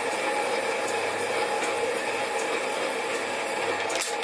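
Sieg SC4 mini lathe running, its parting tool cutting under power feed into a spinning cast iron bar to part off a cylinder cover. The motor hum and cutting noise are steady, with a short sharp click near the end.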